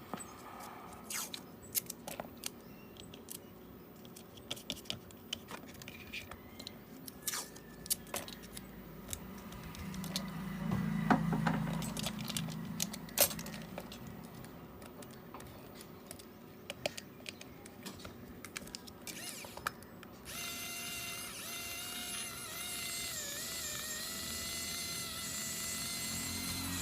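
Small repair tools clicking and tapping on a smartphone, many sharp clicks, with a low motor whir from about ten to thirteen seconds in. Over the last several seconds a steady humming tone with several pitches takes over, wavering slightly.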